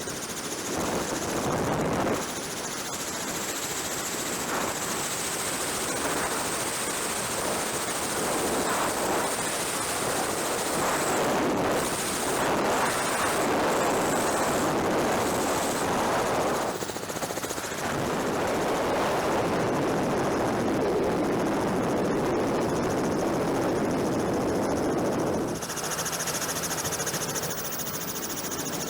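Helicopter rotor and engine noise, a dense, fast chop that runs on, with abrupt changes in level and tone about two seconds in, around seventeen seconds and near the end.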